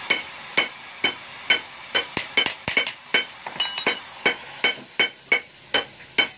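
Small hammer tapping on the hollow steel body of a motorcycle muffler, about two to three sharp ringing taps a second, with a quicker flurry of taps around two seconds in, over a steady hiss.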